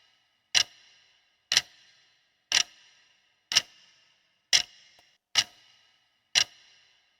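Clock-tick sound effect of a quiz countdown timer: short, sharp ticks about once a second, seven in all, counting down the time to answer.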